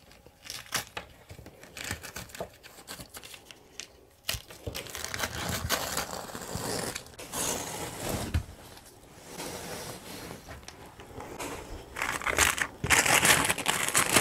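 Pink fiberglass batt insulation being pulled out through a hole in the floor decking and bundled up by hand, rustling and crinkling. Sparse crackles at first, then continuous from about four seconds in, loudest near the end.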